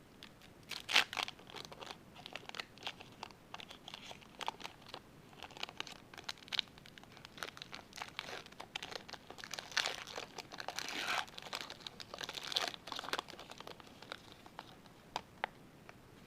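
A trading-card pack wrapper being torn open and crinkled by hand: irregular crackles and rustling, loudest about a second in and again around ten to thirteen seconds in.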